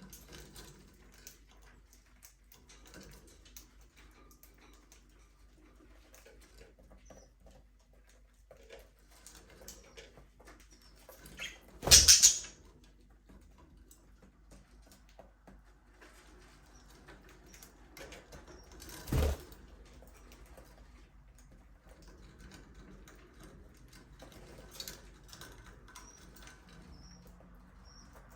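Budgerigars in an aviary moving about, with faint scratching and pecking ticks and a few soft, sparse chirps. Two loud, brief rustles cut in, one about halfway through lasting about half a second and a shorter one some seconds later.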